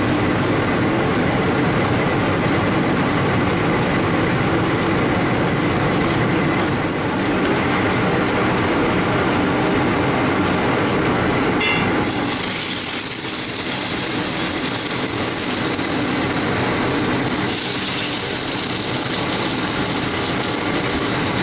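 Battered chicken bubbling in a deep-fat fryer over a steady rumbling noise. About twelve seconds in, a bright sizzle sets in as paprika-marinated chicken breast goes into hot oil in a steel frying pan, and it grows stronger again near the end.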